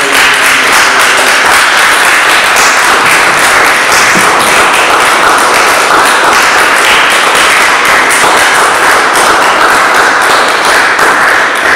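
A congregation applauding: dense, steady clapping from many hands, dying down near the end.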